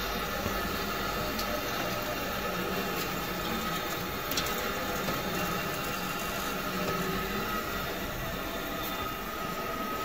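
Refrigerator compressor running steadily after a refrigerant recharge: an even mechanical drone with a faint steady whine over it.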